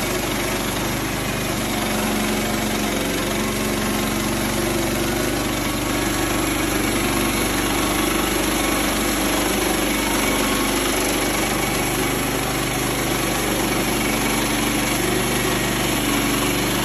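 Woodland Mills HM122 portable bandsaw mill running steadily under power, its small gas engine driving a freshly fitted band blade through a log.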